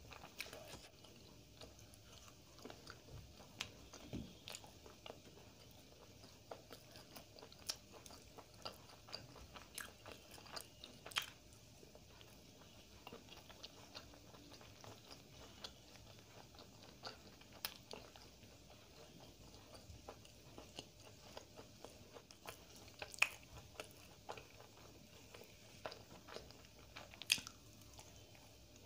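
Close-miked chewing and wet mouth sounds of someone eating roti with chicken curry: soft clicks and smacks, with a few sharper clicks standing out.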